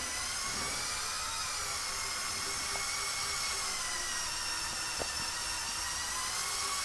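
Electric drive motors of a LEGO Technic 42129 Mercedes-Benz Zetros trial truck whining steadily through the gear train as the model crawls, the pitch wavering slightly with the load. A faint click about five seconds in.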